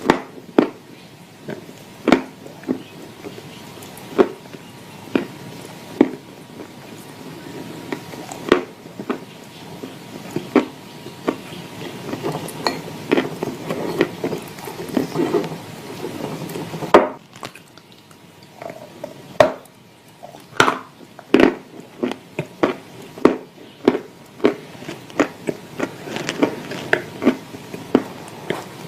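Dry clay chunks being chewed with clay paste: irregular sharp crunches, coming faster toward the end.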